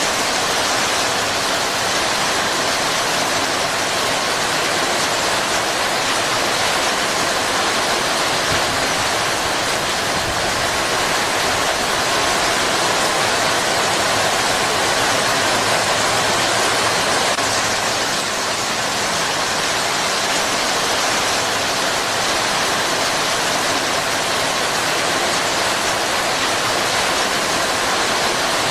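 Heavy rain falling steadily, a dense, even hiss with no thunder.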